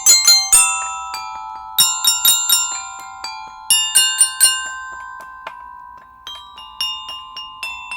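Metal glockenspiel bars struck with mallets in short runs of three to five quick notes, about five runs in all, each note ringing on after the strike.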